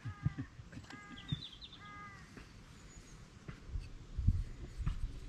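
A crow-family bird cawing three times, about a second apart, with a small bird chirping faintly once between them. A few low thumps come near the end.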